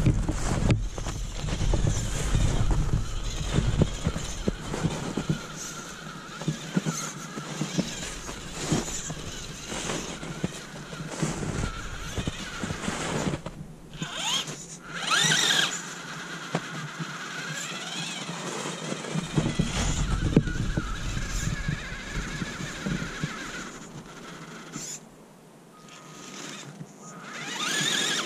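Axial UTB18 Capra 1/18-scale RC rock crawler on a 3S battery being driven through snow: its electric motor and drivetrain whine up and down in pitch as the throttle is worked, with the tyres churning snow. The sound drops off briefly near the end.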